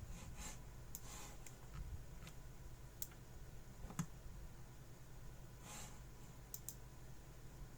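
A few scattered, faint computer mouse clicks, with a couple of short softer swishes, over the steady low hum of a computer running in the background.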